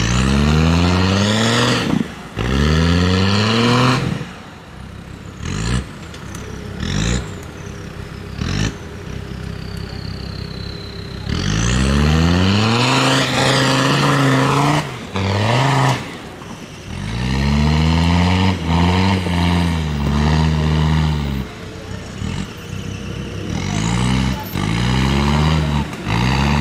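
Land Rover Discovery TD5's tuned five-cylinder turbodiesel revved hard again and again under heavy load as it churns through deep mud on 37-inch mud tyres. Each rev rises steeply in pitch, and several break off abruptly. In a quieter stretch a thin whistle falls in pitch.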